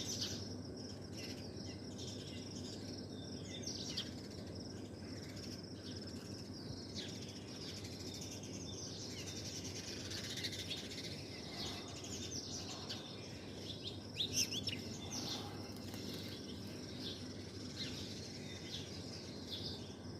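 Many small birds chirping in a morning chorus, short high chirps overlapping at irregular intervals, with a busier, louder burst of calls about two-thirds of the way through. A steady background hiss runs beneath.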